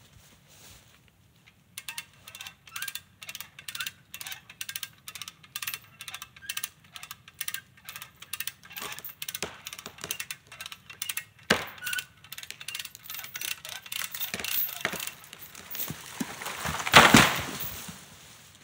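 A tree being cut and felled: quick, even cutting strokes, about three a second, give way to a swelling rush and a loud crash near the end as the tree comes down through the branches.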